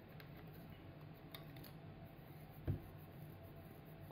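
A toddler handling a plastic cup and drinking from it: a few faint clicks and one soft low thump a little under three seconds in, over a steady low room hum.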